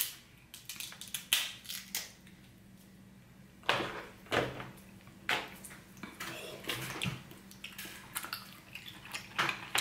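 Wet cracking and clicking of a cooked king crab leg's shell and meat being pulled apart by hand, with a few louder cracks about four and five seconds in and many small wet ticks after.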